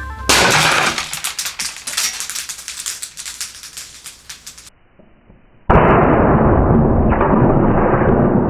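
An airsoft gun firing: a sudden loud shot about a quarter second in, followed by a few seconds of rattling, clicking pellet impacts that thin out and fade. Past halfway a loud, muffled, continuous rumbling blast begins abruptly and holds.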